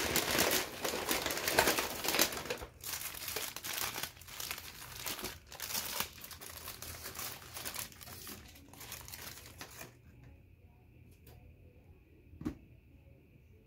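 Paper fast-food bag and burger wrapper paper rustling and crinkling as a burger is pulled out and unwrapped, loudest in the first couple of seconds and dying away about ten seconds in. Near the end there is a single short tap.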